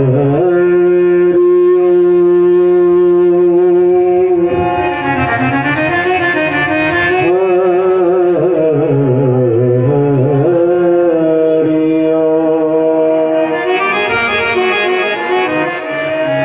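Hindu devotional song: a man singing with long held notes that waver and slide in the middle, over harmonium and drum accompaniment.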